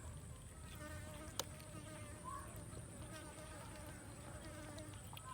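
A fly buzzing close by for a few seconds, its pitch wavering slightly, with one sharp click about a second and a half in. A faint steady high whine runs underneath.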